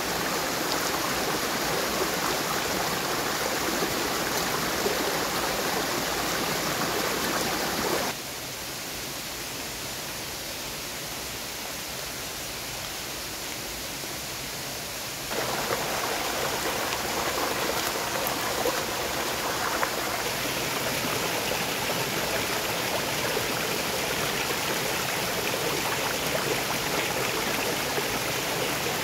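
Stream water flowing steadily. The sound drops suddenly to a quieter, duller level about eight seconds in and comes back to full strength about seven seconds later.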